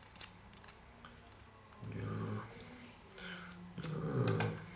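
A man's voice imitating a truck engine: low growling hums in short spells, about two seconds in and again near the end, with a few light clicks from a plastic toy truck being handled.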